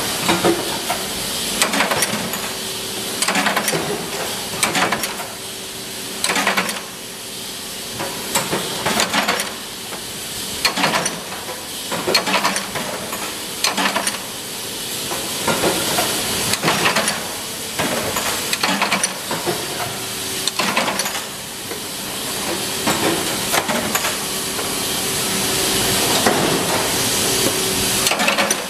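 Machinery in a brass hinge workshop running: a steady hiss with a faint hum under it, broken by sharp clacks at irregular intervals of roughly a second.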